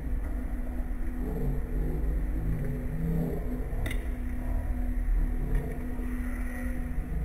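Restaurant background noise: a steady low rumble with a held hum over it, and a single sharp click about four seconds in.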